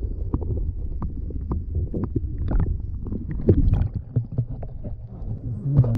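Muffled gurgling and sloshing of water around a camera dipped underwater, with a steady low rumble and scattered small clicks and knocks as a hand lowers a small bass into the water.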